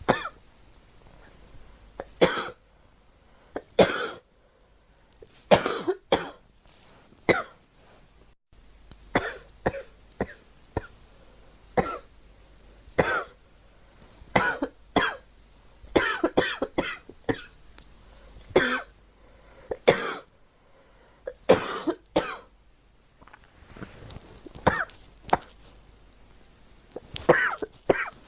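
A girl coughing over and over: short coughs about every second or two, some coming in quick runs of several.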